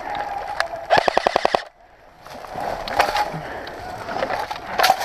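Airsoft gun firing a short full-auto burst of about ten rapid shots, about a second in.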